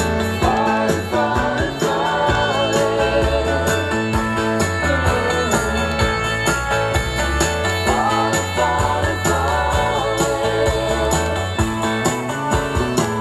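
Music with a singing voice, notes held with vibrato over a bass line.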